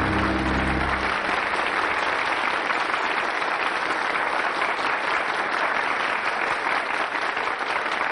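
Studio audience applauding steadily. The tail of a musical sting cuts off about a second in.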